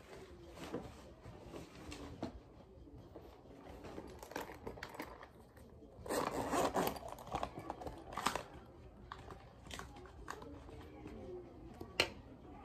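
Close-up handling of a canvas tote bag and a fabric pencil case: rustling cloth and small clicks and taps of the items, with a louder burst of rummaging about six seconds in and a sharp click near the end.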